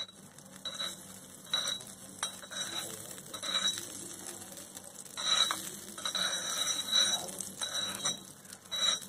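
A metal spoon scraping and tapping around a small metal pan, spreading butter as it melts. The scrapes come irregularly, about eight times, with a faint metallic ring.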